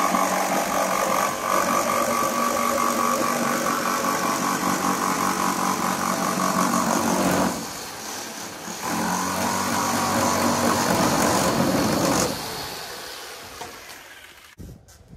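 Corded jigsaw with a fine-tooth blade cutting through 8 mm multiwall polycarbonate sheet, running steadily. It drops off briefly about seven and a half seconds in, picks up again, and stops about twelve seconds in as the cut is finished.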